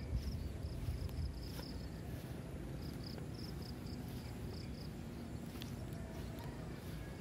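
Outdoor rural ambience: short high chirps repeating in quick groups through the first half, fading out about halfway, over a steady low rumble.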